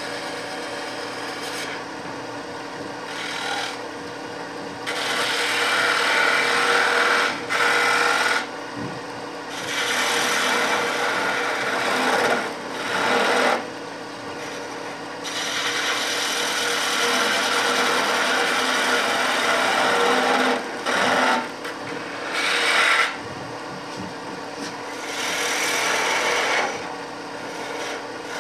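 Wood lathe running with a steady hum while a hand-held turning tool cuts the spinning wood, the scraping cut starting and stopping in passes of a second to several seconds.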